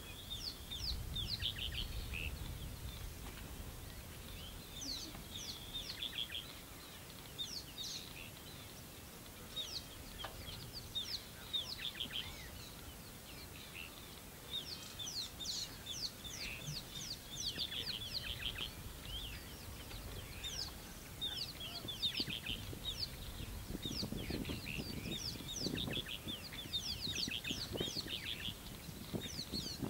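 Wild birds chirping and calling, many quick down-slurred notes in rapid runs throughout, with a low rumble under them near the start and again near the end.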